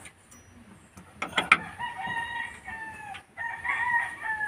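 A rooster crowing twice, each crow one long call that sags slightly in pitch at its end. A few sharp clicks come just before the first crow.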